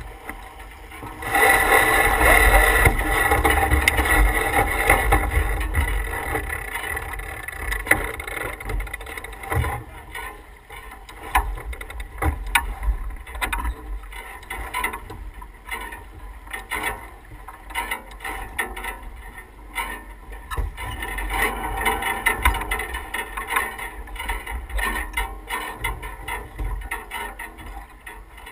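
Rush of water and wind aboard an S2 9.1 racing sailboat under sail. The rush is loudest for several seconds near the start and swells again later, with scattered clicks and knocks throughout.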